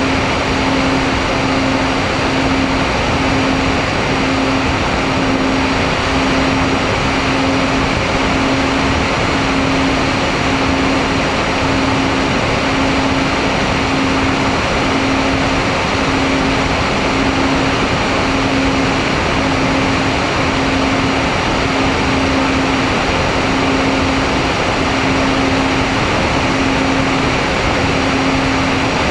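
Twin electric motors and propellers of an MFD 1800 twin FPV plane in cruise, heard from the plane itself. A steady rushing drone carries a humming tone that pulses a little more than once a second.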